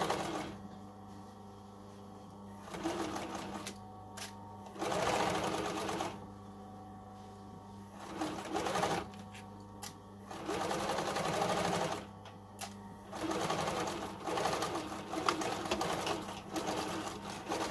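Sewing machine stitching a seam in short runs of one to three seconds, stopping and starting about half a dozen times as the pins are pulled from the seam, with a steady low hum underneath.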